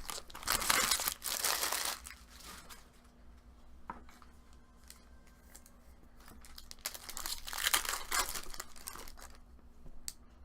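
Foil trading-card pack wrapper being torn open and crinkled in the hands, in two bouts: one about half a second in and one again around seven seconds in, with lighter rustling between.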